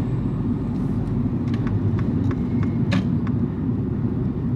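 Steady road and engine rumble heard from inside a moving car, with a few light ticks in the middle, the sharpest about three seconds in.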